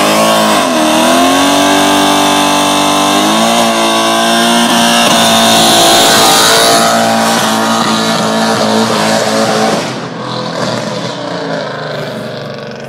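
A car engine revving hard: its pitch dips and climbs in the first second, then holds high and steady under a loud hiss, and it eases off about ten seconds in.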